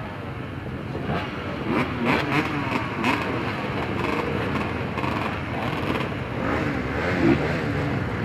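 Several off-road motorcycle engines idling and revving together, their pitches wavering up and down, with a few sharper blips of throttle.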